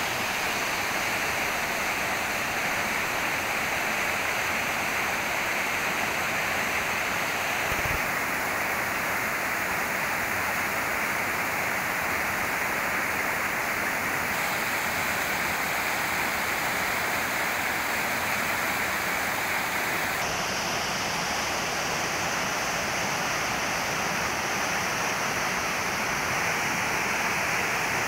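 Rocky mountain stream rushing over boulders: a loud, steady whitewater rush, its tone shifting slightly a few times.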